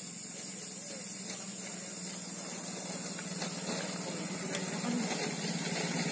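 Steady high hiss of the night-time background, with a low steady hum beneath it, growing slowly louder in the second half.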